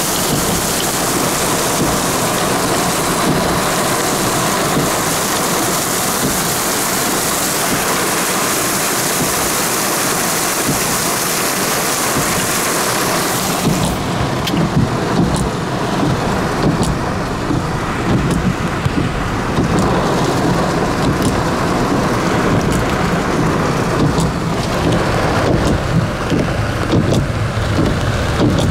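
Heavy rain falling as a dense, steady hiss. About halfway through the sound changes abruptly to a duller, lower wash of water with scattered sharp drip-like ticks.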